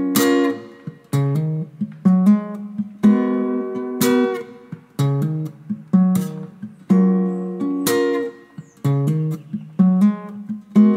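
Background music: acoustic guitar strumming chords at a relaxed, even pace, about one strum a second.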